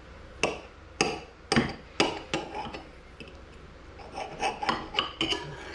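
A knife and fork cutting through a fried stuffed chile in sauce, clinking and scraping against the bowl: a few sharp separate strokes in the first half, then a quicker run of them near the end.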